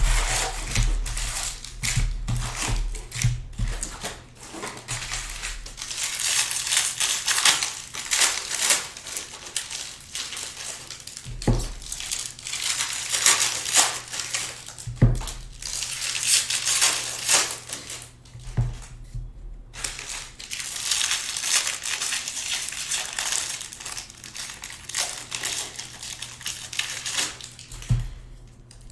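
Foil and plastic wrappers of trading-card packs crinkling and crackling as they are torn open and handled. A few soft knocks are heard now and then.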